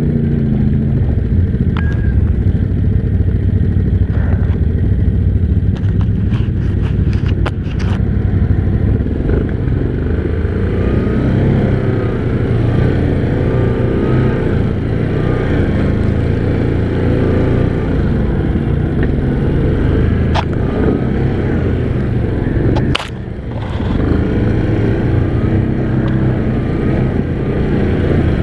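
ATV engine running under way along a trail, with scattered knocks and rattles. About three quarters of the way through, a sharp knock is followed by a brief dip in the engine sound.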